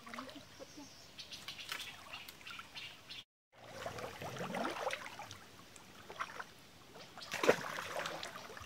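Water sloshing and splashing around a person's legs as he wades through a shallow stream, with one sharp, louder splash near the end.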